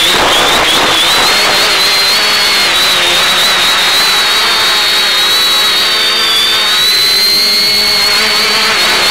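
Quadcopter's electric motors and propellers whining in flight over a steady hiss, the pitch drifting up and down with throttle.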